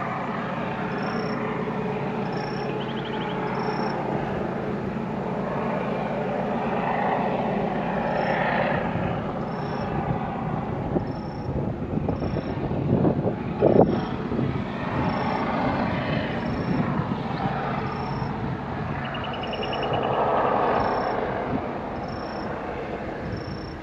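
Diesel locomotives of a narrow-gauge freight train running in the distance and drawing nearer, a steady engine rumble with a low hum. Gusts of wind hit the microphone about halfway through.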